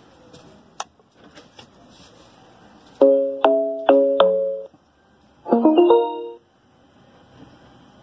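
WSA-858 clock-radio Bluetooth speaker's start-up jingle: four loud piano-like notes as it powers on, then about a second later a quick run of chime notes as it switches to Bluetooth mode. A single button click comes before it, under a second in.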